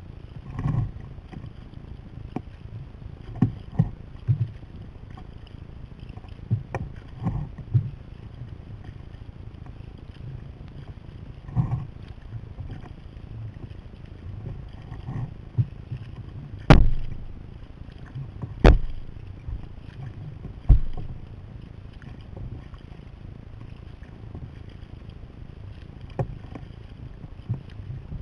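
Sea kayak being paddled: a steady wash of water with irregular sharp knocks and splashes, the loudest three coming about two seconds apart in the middle.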